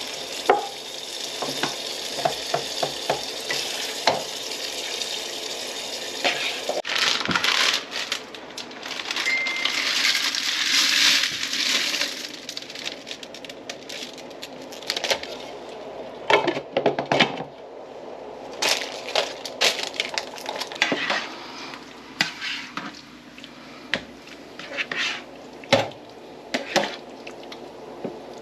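Food sizzling in a skillet while a utensil stirs it, scraping and clinking against the pan again and again.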